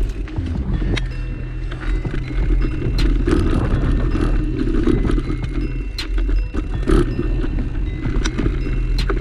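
Background music with steady bass notes and short held higher notes, with scattered sharp clicks.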